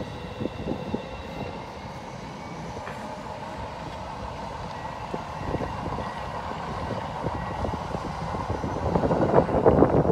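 Electric commuter train running across a long river bridge: a steady rumble with faint whining tones and occasional clacks. Wind buffets the microphone from about nine seconds in and is the loudest sound at the end.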